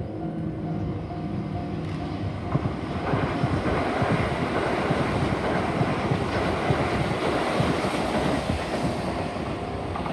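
Sanyo Electric Railway 6000 series electric train passing at speed, its wheels clattering over the rail joints; the noise builds about two seconds in and stays loud.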